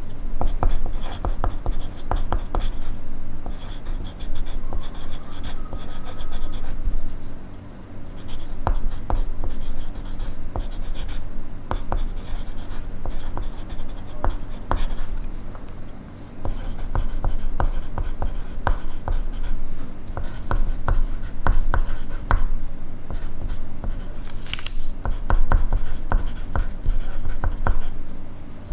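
Pencil writing on paper, close up: a continuous run of scratchy strokes, pausing briefly about a quarter and about halfway through.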